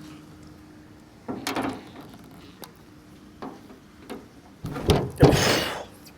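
Gear being handled and pulled loose: a scrape and rustle about a second and a half in, a few light clicks, then two loud knocks with rustling near the end.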